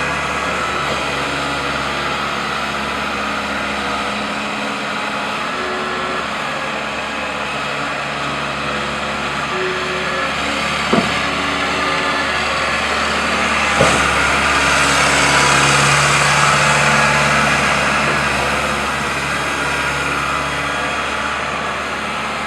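Diesel engine of a CASE 580SM backhoe loader running steadily, then rising in load for several seconds past the middle. Two short sharp knocks come about halfway through, the second just as the engine picks up.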